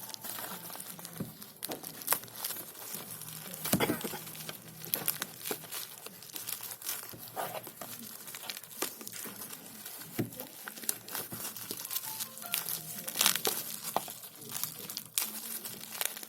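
Packaging of a wristwatch being handled and unwrapped: irregular crinkling and crackling with scattered sharp clicks.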